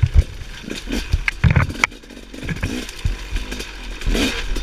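Dirt bike engine running at low revs with short throttle blips, fitted with a motocross exhaust, while the bike knocks and clatters over rocks and roots in repeated sharp impacts; the engine revs up about four seconds in.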